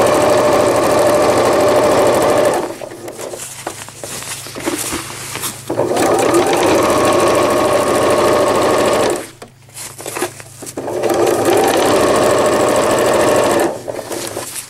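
Electric sewing machine top-stitching PUL fabric along a zipper with a zipper foot, running in three spells of a few seconds each with short pauses between.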